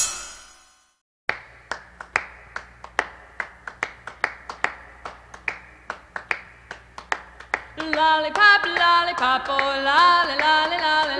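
Background music. A ringing note fades out at the start and is followed by a second of silence. A new song then opens with sharp rhythmic clicks, like claps, and layered harmony vocals come in about eight seconds in.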